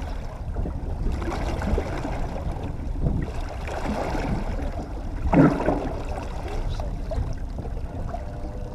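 Fishing boat running at trolling speed: a steady low motor rumble with water washing against the hull, and one short louder sound about five seconds in.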